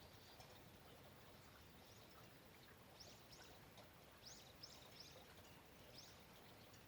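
Faint steady rain hiss, with a small bird giving a quick run of short, high chirps a few seconds in.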